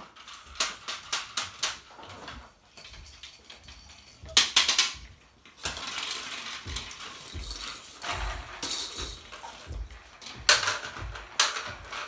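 Hard plastic toys clattering, rattling and rolling on a concrete floor as puppies push about among them: a run of quick clicks in the first two seconds, a louder clatter about four and a half seconds in, then steady scuffling with scattered knocks and thumps.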